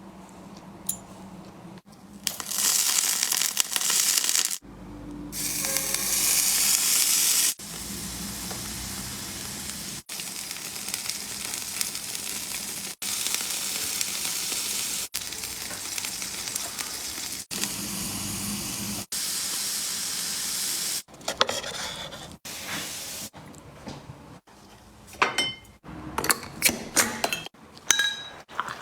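Food sizzling as it fries in a pan, in a string of short clips that cut in and out abruptly. A few sharp clinks of utensils against cookware sound near the end.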